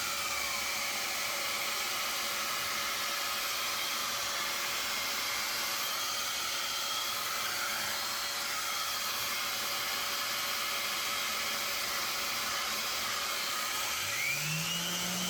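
Steady whooshing hiss of a vacuum on an orbital sanding rig. The sander's motor winds down at the start and spins back up with a rising whine near the end.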